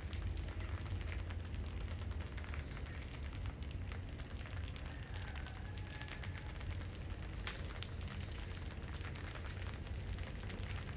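A heap of dozens of field rats scrabbling and nibbling at scattered rice grain: a dense, steady crackling patter of tiny clicks over a low rumble.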